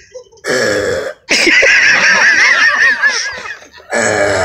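Exaggerated comedy burps for a 'baby' being burped: a short burp about half a second in, then a long, loud, warbling high-pitched one, then another short burp near the end.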